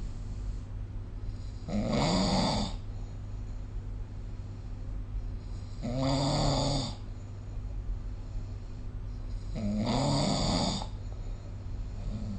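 A sleeping person snoring: three snores about four seconds apart, each lasting about a second, over a steady low background hum.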